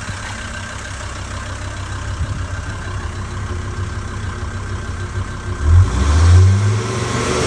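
88 bhp AJT turbo-diesel van engine idling smoothly on freshly fitted PP1 Xtraflo injectors and a hybrid turbo. Near the end, the revs rise briefly and the sound gets louder.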